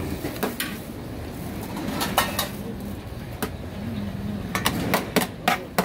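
Dishes and metal utensils clinking and clattering in short sharp knocks, thickest near the end, with a bird cooing low underneath.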